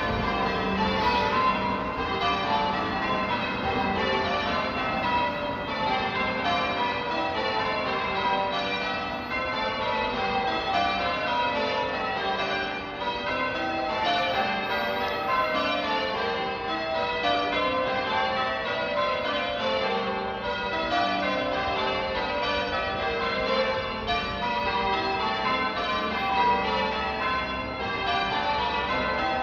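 Church tower bells rung in changes: a steady, unbroken run of bell strikes following one after another, their overlapping tones ringing on together.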